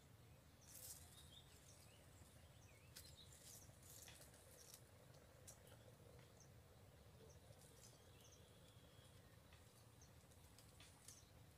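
Near silence: faint outdoor ambience with scattered light rustles and ticks, and a few faint bird chirps.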